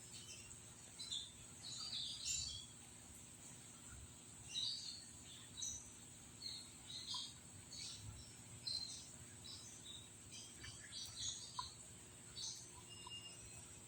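Small birds chirping in short, scattered calls over a steady high-pitched insect drone.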